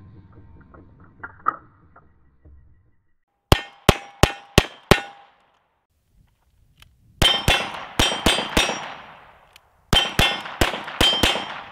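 Single-action revolver fired in three fast strings of five shots, about three shots a second, each shot followed by a metallic clang of steel targets ringing.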